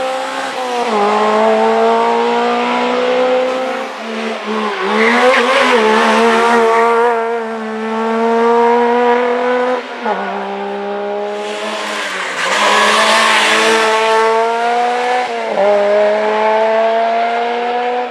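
Rally car engines at full throttle pulling away through the gears: the pitch climbs in each gear and drops at each upshift. A white BMW 3 Series is first, and a second car takes over about ten seconds in.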